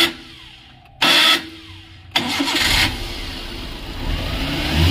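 Maruti Suzuki Eeco's four-cylinder petrol engine being cranked in two short bursts, then catching about two seconds in and running, growing louder toward the end. The engine stalls when given throttle on petrol, which the mechanic puts down to a failed MAP sensor.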